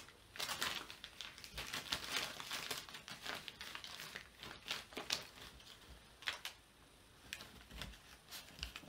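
Paper crinkling and crumpling in irregular quick bursts as a West Highland white terrier bites and tugs at torn paper documents.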